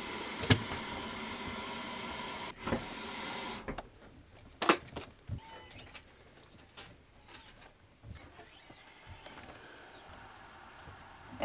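Water running through a newly plumbed outdoor-kitchen water system: a steady hiss with a faint hum that stops about three and a half seconds in. A few light clicks and knocks follow.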